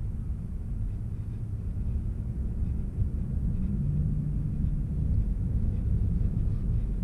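Steady low road rumble of a car travelling at highway speed, heard from inside the car, with a low drone standing out for a second or so near the middle.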